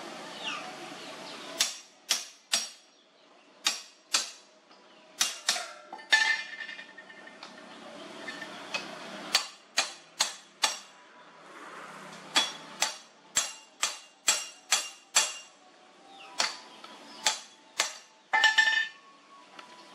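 Hammer blows on the metal parts of a threaded-rod drive shaft, each strike sharp with a brief metallic ring. The blows come in short runs of two to five with pauses between them.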